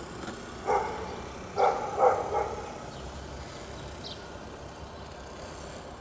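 A dog barking: four short barks between about one and two and a half seconds in, the last three close together, over a steady low background noise.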